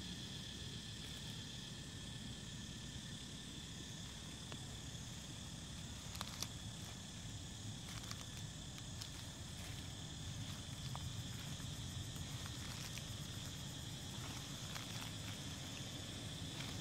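Steady high-pitched chirring of insects in the trees over a low background rumble, with a few short clicks and rustles about six and eight seconds in.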